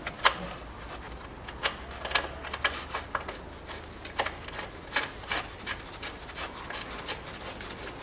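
Gloved hands working on a car's front lower control arm and its fasteners: scattered light metallic clicks and taps with some rubbing, the sharpest click about a quarter second in.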